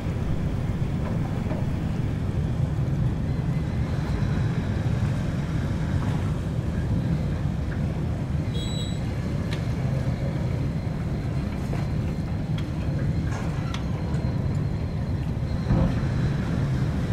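Steady low rumble of a large container ship under way close by, its engine and bow wave mixed with wind on the microphone. A brief faint high chirp comes about halfway through.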